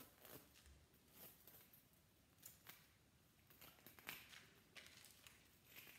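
Faint, scattered small clicks and rustles of thin copper wire being pulled and unwound by hand from a coil salvaged from a tube TV.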